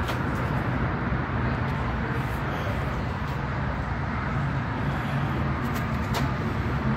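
Steady outdoor traffic and engine rumble, with a few faint clicks.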